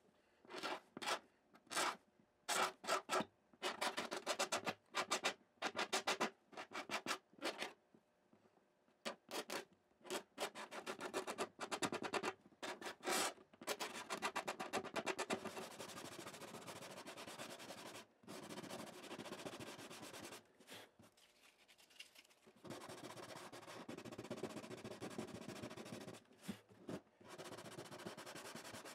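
Hands rubbing and scratching at the wooden bridge of an acoustic guitar: a run of short scratchy strokes, then longer stretches of steady rubbing.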